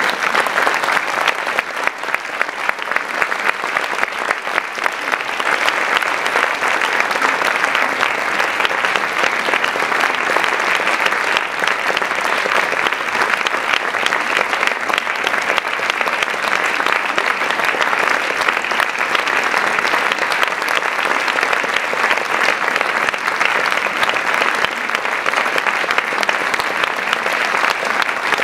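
Audience applauding, a dense, steady wash of clapping that thickens from distinct claps over the first few seconds.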